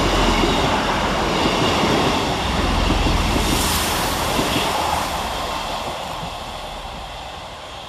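Two coupled Class 158 diesel multiple units passing through on the near track: a loud rush of wheels on rail and diesel engines, which fades steadily over the last few seconds as the train runs away down the line.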